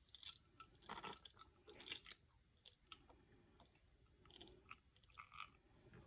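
Faint wet squishing with a few small clicks, from sriracha hot chili sauce being squeezed from its bottle into a buttermilk marinade.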